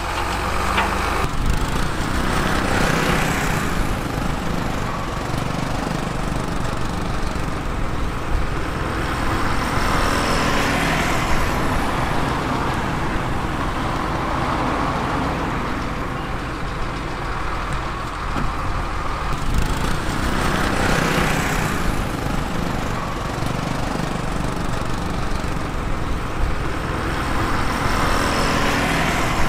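Heavy diesel truck and machinery engines running steadily, with a rushing noise that swells and fades four times, like passing vehicles.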